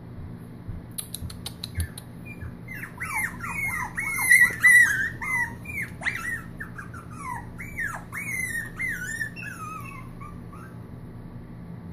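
Puppy whining at a gate: a run of short, high-pitched cries that slide up and down, loudest about four to five seconds in, after a few light clicks near the start.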